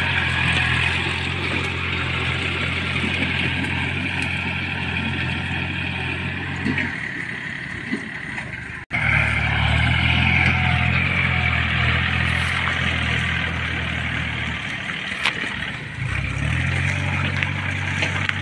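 Farm tractor diesel engines running steadily as they work an overgrown field. The sound breaks off for an instant about nine seconds in and dips briefly again about fifteen seconds in.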